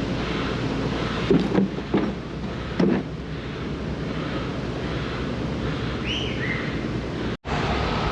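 Steady rumble of heavy construction machinery mixed with wind on the microphone, with a few loud knocks between one and three seconds in and a short falling squeal about six seconds in.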